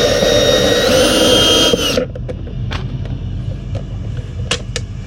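Power drill-driver running as it backs out a screw, its whine stepping up in pitch about a second in, then stopping sharply. A few light clicks follow.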